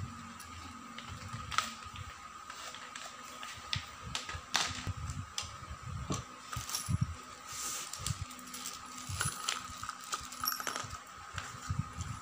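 Hand-handling of office chair parts: the metal seat tilt mechanism set onto the seat cushion and small steel bolts and washers clinking as they are picked through. Scattered light clicks and knocks, over a faint steady hum.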